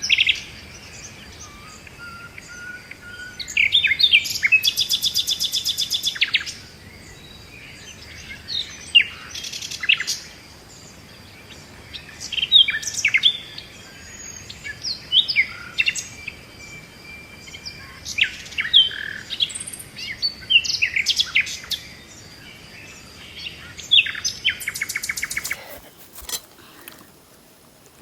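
Birds calling in a forest: repeated short chirps and whistles, with a rapid rattling trill about four seconds in and another near the end.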